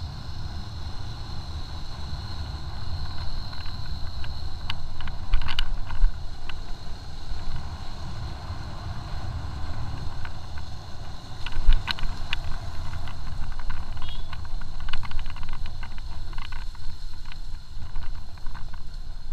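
Motorcycle on the move, heard from its on-board camera: a steady low rumble of engine and wind on the microphone, with a thin steady high whine. Short knocks and rattles come through now and then, the loudest about six and twelve seconds in.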